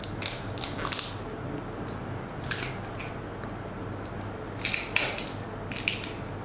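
Popsicle-stick wood cracking and splintering as a steel rod pries it away from a taped battery pack, in several short bursts of crackles and clicks.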